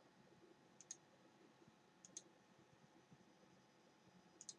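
Three faint computer mouse clicks, each a quick press-and-release pair, a second or two apart, over near silence.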